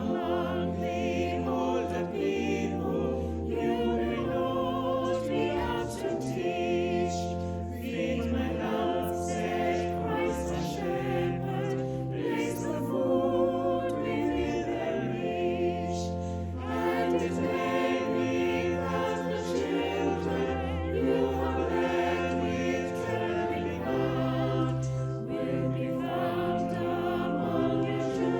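A choir singing with instrumental backing, a steady sustained bass beneath the voices.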